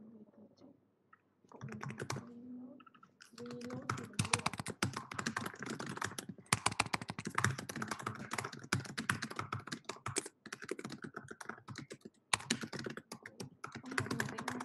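Fast typing on a computer keyboard: a short patch of keystrokes about two seconds in, then a near-continuous clatter of keys with a couple of brief pauses.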